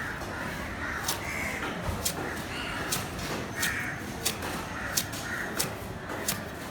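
Knife blows on a cutting board as a seer fish is cut up: a run of sharp knocks at irregular intervals, coming faster from about a second in. Crows caw again and again in the background.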